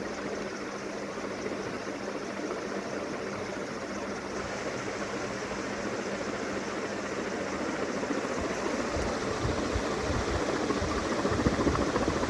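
48-inch PBS ceiling fan running fast, a steady rush of air that slowly grows louder. From about eight seconds in, its draught gusts on the microphone.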